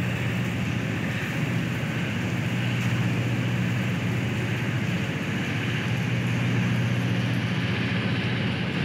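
Steady low drone of heavy port machinery running during container unloading, with an even hiss over it and no sudden knocks.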